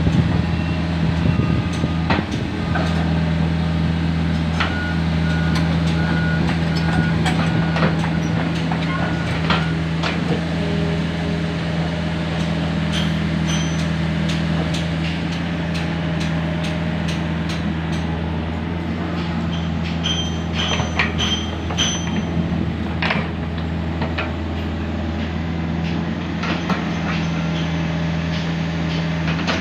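Komatsu PC45 mini excavator's diesel engine running steadily while it levels fill soil, with scattered knocks and clanks. A few brief high whistling tones come about a fifth of the way in and again about two-thirds of the way in.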